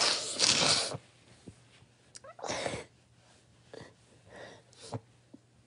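A person's breath sounds close to the microphone: one loud, sharp burst in the first second, then several shorter, softer ones.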